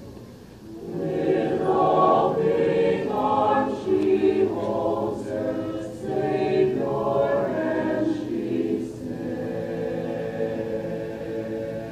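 Mixed choir of men and women singing a cappella: a soft opening swells into loud full chords about a second in, then eases to a quieter held chord over the last few seconds.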